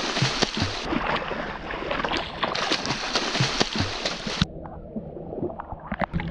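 Water splashing and sloshing right at a waterproof camera held at the surface as swimmers kick and splash. About four and a half seconds in the sound turns dull and muffled as the camera goes under the water.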